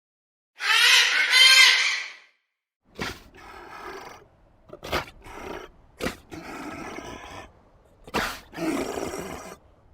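Animal calls: one loud, pitched, drawn-out call about half a second in, then a series of short, rough grunting calls broken by sharp clicks.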